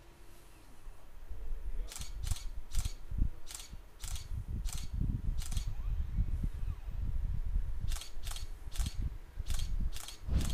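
Canon 550D DSLR shutter firing two bracketed bursts of about seven exposures each. The gaps between clicks widen as the exposures in each bracket get longer. A low rumble runs underneath.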